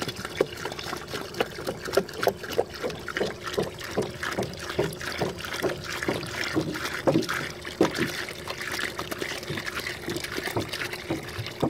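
Water pouring from a plastic gallon jug into a collapsible fabric tub already part-filled with water: a steady splashing stream broken by many short, irregular glugs as air bubbles back into the jug.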